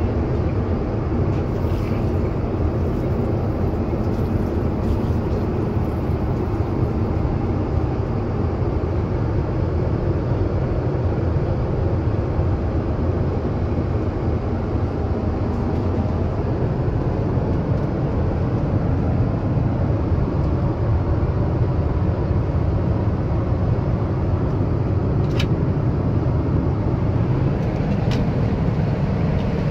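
Steady in-flight cabin noise of a Boeing 777-300ER: an even low rumble of engines and airflow, with a couple of short clicks near the end.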